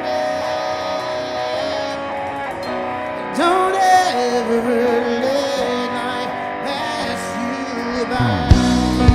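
Live rock band playing: guitar and a sung melody, with low bass notes and drum hits coming in near the end.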